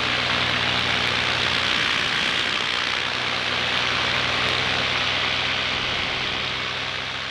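Paramotor engine and propeller running steadily in flight: a constant low drone under a loud rush of airflow. The sound fades away near the end.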